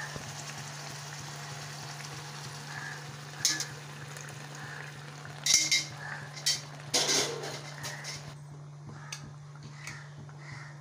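Chicken masala sizzling in a pan as a little water is stirred in, with a spoon knocking and scraping against the pan several times in the middle. The sizzle dies down near the end as the water takes over.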